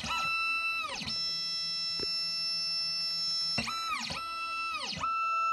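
Background music: sustained, guitar-like notes that bend downward in pitch again and again.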